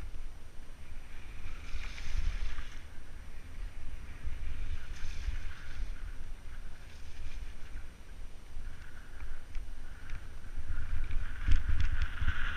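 Wind buffeting a helmet-mounted camera's microphone as a mountain bike rolls down a snowy trail, with patches of tyre hiss on the snow. A few sharp rattles come near the end as the bike goes over bumps.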